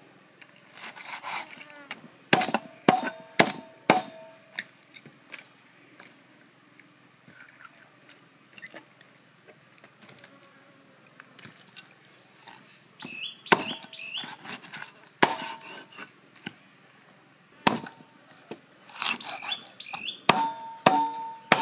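Meat cleaver chopping through a whole raw chicken on a wooden chopping block: sharp, irregular strokes in clusters, some with a brief metallic ring from the blade. A small bird chirps a few times between the strokes.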